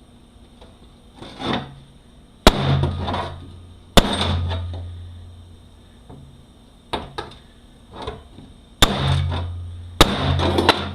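Loud metal-on-metal bangs as heavy 6L80E transmission parts strike metal during the teardown. There are four hard hits, a pair in the first half and a pair near the end, each followed by a low ring that fades over about a second, with lighter knocks and clinks between them.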